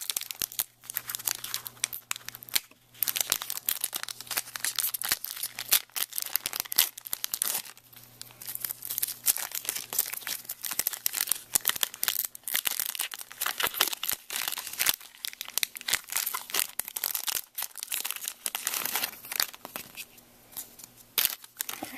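Foil Pokémon booster pack wrapper being torn open and crinkled by hand: a dense run of sharp crackling and tearing that dies away near the end.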